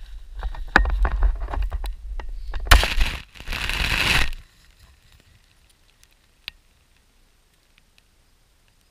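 Camera handled and set down on a gravel shore: rumbling knocks and clicks, then loud crunching and scraping against the gravel for a second or two that stops abruptly about four and a half seconds in. A single sharp click follows a couple of seconds later.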